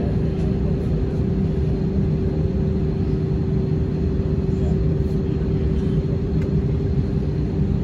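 Steady cabin noise of an Airbus A320-232 jet: a constant low rumble from its IAE V2500 engines and the airflow, with one steady hum held on a single pitch.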